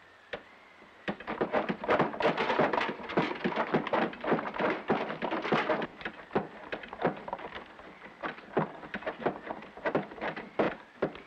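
Outdoor hand water pump being worked: a rapid run of clanks and knocks starting about a second in, thick for about five seconds and then thinning out to scattered knocks.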